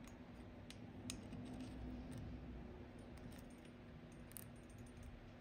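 Faint scattered clicks and scrapes of a screwdriver tip pressing a plastic-insulated push-on connector down onto the ignition coil's kill-switch terminal, over a steady low hum.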